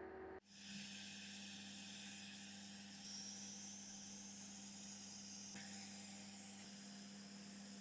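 Steady hiss with a low, even hum underneath, starting after a brief drop about half a second in.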